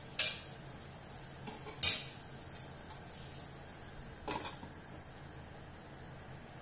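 Metal cookware clinking: three sharp clinks, the second the loudest, the last as a stainless steel lid is set on the curry pot to simmer the meat until tender. A steady faint hiss runs underneath.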